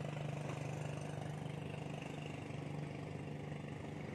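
A small engine running steadily at idle: an even low hum with a fast regular pulse.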